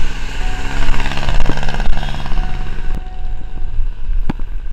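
Wind buffeting the microphone of a bike-mounted action camera while riding, with a steady low engine drone from a motor vehicle on the road.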